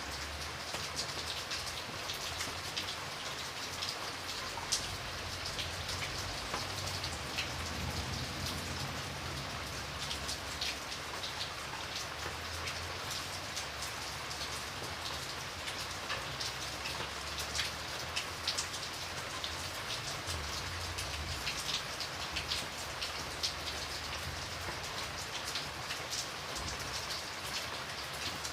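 Steady rain falling, with many separate drops ticking on a surface over a continuous hiss and a faint low rumble.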